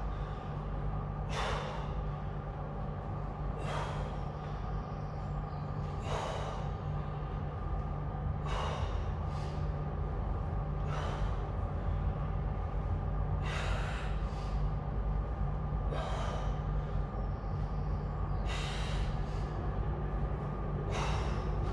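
A man exhaling hard, in short breaths about every two and a half seconds, in time with his dumbbell hammer curls, over a steady low hum.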